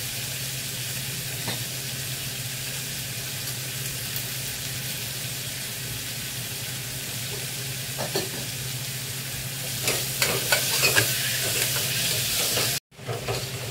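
Onions and tomatoes frying in oil in an aluminium pressure-cooker pot, a steady sizzle. From about ten seconds in, a steel ladle scrapes and knocks against the pot as the mixture is stirred.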